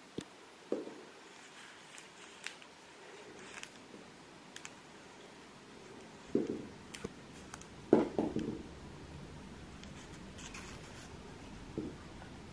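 A kitten playing with a feather toy on a laminate floor: scattered light clicks, taps and soft bumps of the toy and paws. The loudest knocks come about six and eight seconds in.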